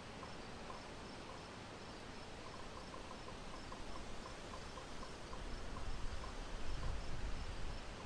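Faint background noise: a steady hiss with soft, evenly spaced high ticks through the middle, and a low rumble that grows louder toward the end.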